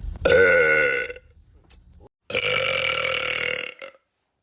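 Two loud, drawn-out burps from young men, one about a second long and then a longer one of about a second and a half.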